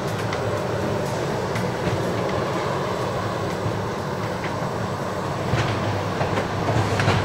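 Steady engine rumble with a rushing hiss over it: airfield apron noise. It cuts off abruptly near the end.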